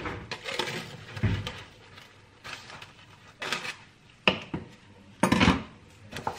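Kitchen handling noises: a few sharp knocks and clinks of dishes, and short crinkling rustles of plastic cling film pressed over a glass bowl, the loudest rustle about five seconds in.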